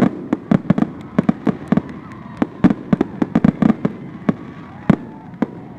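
Fireworks bursting in quick, irregular succession: a couple of dozen sharp bangs over a few seconds, thinning out near the end.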